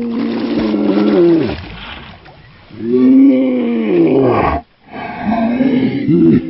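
A man's drawn-out wordless excited shouts: two long howls, each sliding down in pitch as it ends, then a run of shorter ones near the end.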